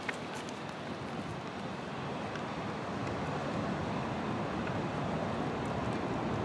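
Jet airliner engine noise, a broad steady rumble growing gradually louder as the aircraft approaches.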